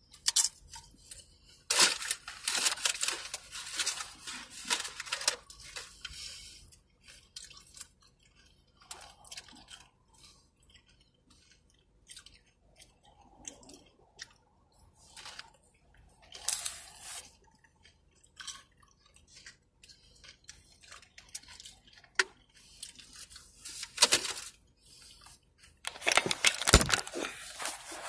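Close-up crunching and chewing of tortilla chips dipped in queso, coming in bursts of crackling bites with quieter pauses of chewing between them.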